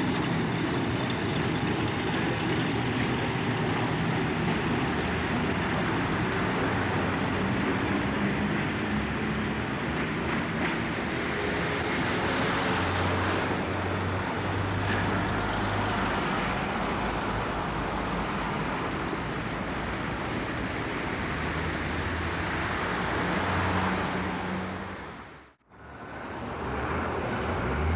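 British Rail Class 50 diesel-electric locomotive running past, its English Electric 16-cylinder diesel engine throbbing under a steady hiss of old camcorder sound. The sound cuts out briefly near the end, then picks up again.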